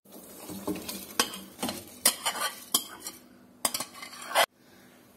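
Soaked rice tipped from a bowl into a metal pot of hot stock, with a quick run of scrapes and clinks of utensil against bowl and pot that stops abruptly near the end.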